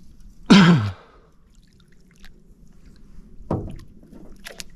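A man's short sigh, falling in pitch, about half a second in, then a few faint knocks and clicks.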